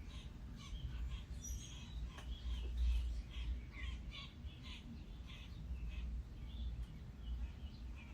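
Wild birds chirping, many short calls in quick succession, over a low rumble of wind on the microphone.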